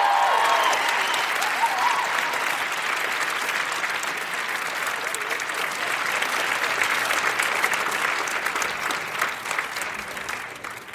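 Live theater audience applauding at the end of a song. A final held note fades out about a second in, and the applause tails off near the end.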